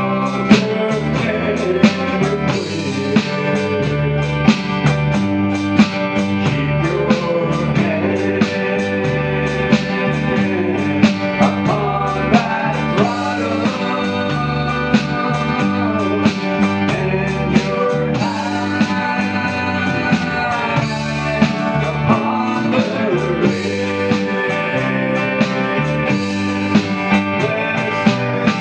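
Live country-gospel band playing with acoustic and electric guitars over a steady beat.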